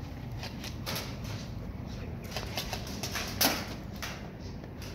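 Scattered sharp clicks and cracks of airsoft gunfire across the field, irregular and uneven in strength, the loudest about three and a half seconds in, over a steady low rumble.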